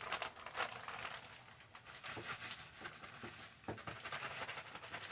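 Plastic bag of light brown sugar rustling and crinkling as sugar is shaken out into a measuring cup, with scattered light clicks of handling.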